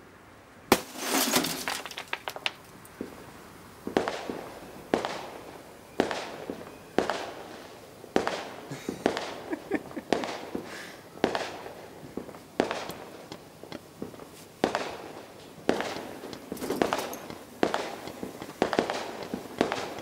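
Fireworks going off in a string of sharp bangs, roughly one a second, each trailing off briefly. The loudest bang comes just under a second in.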